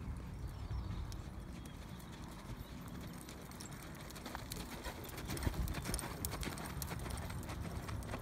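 Hoofbeats of a horse loping on soft sand arena footing, a run of dull thuds as it circles.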